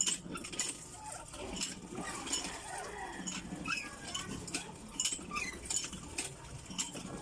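Scattered light clicks and clinks, several a second, with a few short high chirps among them.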